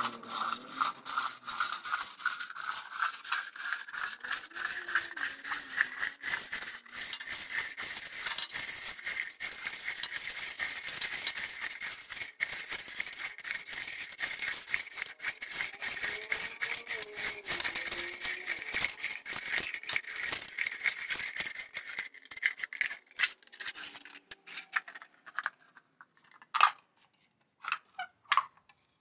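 Flat steel recoil spring of an electric cord reel being wound by hand back into its plastic housing: a dense run of rapid clicks and scraping as the band slides over itself and the plastic, with a thin steady tone underneath. Near the end the clicking thins out to a few separate ticks.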